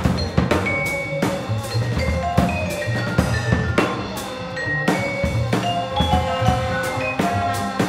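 Small jazz ensemble playing live: a busy drum kit with snare and bass drum hits, ringing vibraphone notes and a double bass line underneath.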